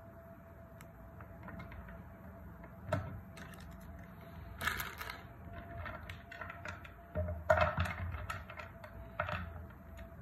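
Chocolate-coated wafer bars being snapped and crushed by hand: irregular crisp cracks and crunches, with the loudest cluster about seven and a half seconds in.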